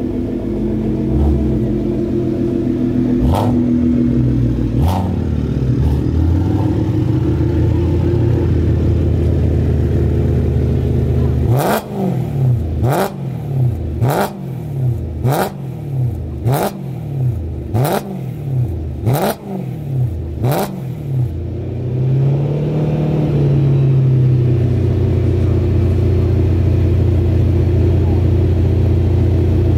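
Heavily modified exhausts of a Nissan R35 GT-R (decatted Meisterschaft system, twin-turbo V6) and a BMW E92 M3 (SuperSprint with F1 race mufflers, V8) running loud, with two sharp exhaust cracks early on. Then comes a run of about eight quick throttle blips about a second apart, each ending in a crack, followed by one longer rev and a steady loud drone.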